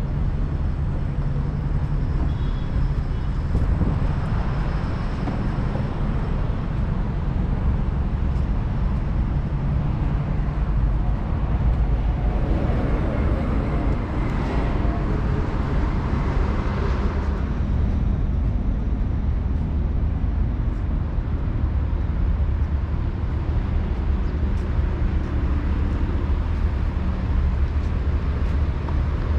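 City street traffic: a steady low rumble of engines and tyres, with a louder vehicle passing about halfway through.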